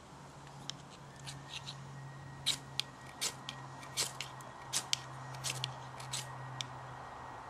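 A knife scraping in short, sharp, irregular strokes, about fifteen of them, starting about a second in, over a steady low hum.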